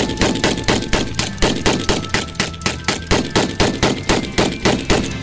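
Rapid automatic gunfire in one long, even burst of about four shots a second.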